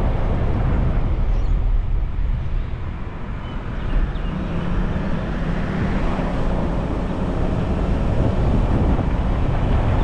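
A car driving at road speed: steady low rumble of tyres on the road mixed with wind noise. It eases off a little about three seconds in, then comes back up.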